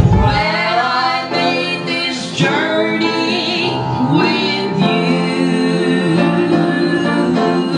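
A woman singing into a microphone with instrumental accompaniment, long held notes through to the end.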